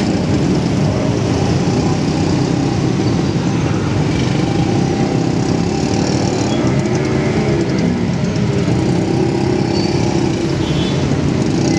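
Small engines of a motorcycle and an auto-rickshaw running in slow stop-and-go traffic: a steady low mechanical drone, with engine pitch rising and falling briefly around the middle.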